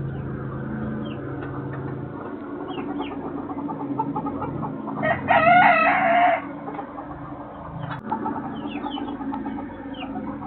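A rooster crows once, a loud wavering call of about a second and a half near the middle, over a backdrop of chickens clucking and small high chirps. A steady low hum runs underneath.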